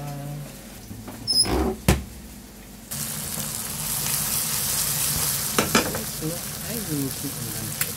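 A few knocks, then, about three seconds in, a steady sizzle starts suddenly: eggs, tomatoes and sausage slices frying in a pan.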